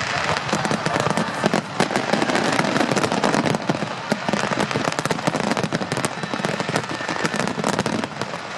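Fireworks display: a dense, continuous crackle of many small sharp cracks in quick succession.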